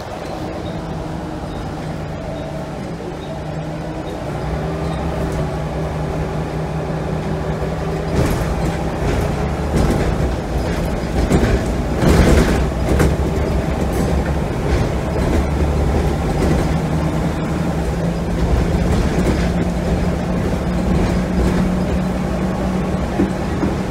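Inside a Scania L94UB bus, its rear-mounted nine-litre five-cylinder diesel runs under way with road noise, heard from the back seats. The engine grows louder a third of the way in, and a burst of knocks and rattles comes around the middle.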